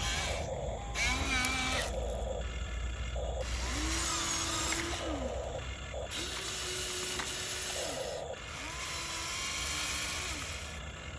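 Small electric motors and gears of a toy excavator whirring in about five short runs, each a second or two long. The pitch rises as each run starts and drops as it stops.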